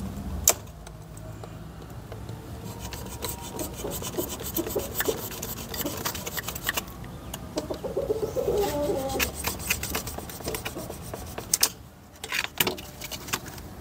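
A knife blade sawing and scraping against the bars of a plastic crate, cutting through the plastic in repeated rasping strokes.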